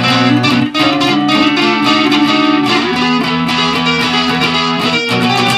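Electric guitar music played loud and continuously, with the notes changing throughout.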